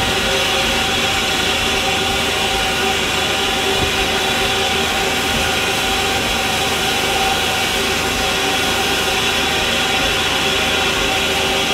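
Steam locomotive LNER A4 Pacific 'Sir Nigel Gresley' standing with steam up, giving a loud, steady hiss of escaping steam with a few held tones in it.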